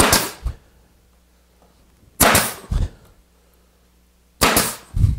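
Grex 1850GB 18-gauge pneumatic brad nailer firing brads into a plywood panel: three sharp shots about two seconds apart.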